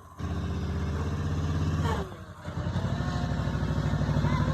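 Riding lawnmower's small engine running steadily, with a brief drop in level about two seconds in before it picks up again.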